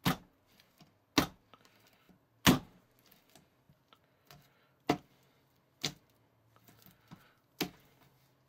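Water-filled squishy splat-ball toys slammed down by hand onto a tabletop: six sharp wet slaps at uneven intervals, the loudest about two and a half seconds in.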